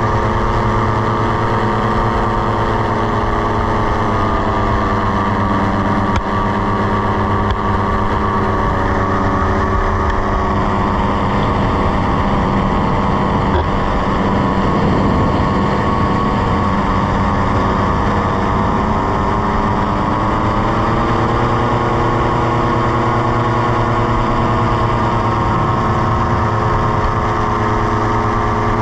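Tandem paramotor trike's engine and propeller running in flight, a steady loud drone that drops in pitch about five seconds in and rises again about twenty seconds in.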